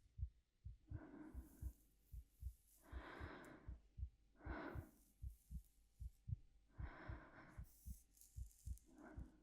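A slow, steady heartbeat, each beat a soft double thump, a little over once a second. Quiet, slow breaths drift in and out over it, five times.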